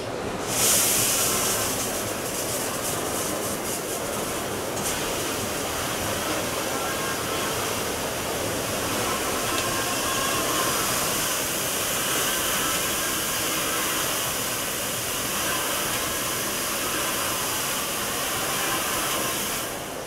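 Winterhalter GS 640 commercial dishwasher running its wash cycle: the water spray comes on with a sudden hiss about half a second in, then hisses steadily against the racks and glass door, dropping away near the end.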